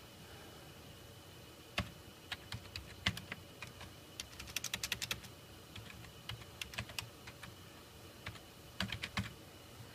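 Computer keyboard typing: irregular keystrokes starting about two seconds in, a quick run of keys about halfway through, and a few more near the end.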